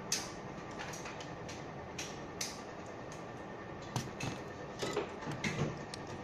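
Scattered small clicks and taps of metal tools on a circuit board, then a cluster of knocks and clatter as the aluminium chassis of the power unit is handled and lifted, over a steady background noise.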